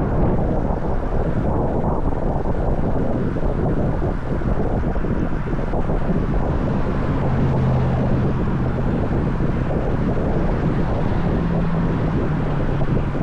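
Steady wind rushing over the camera microphone while riding a bicycle, with a faint low hum joining about halfway through.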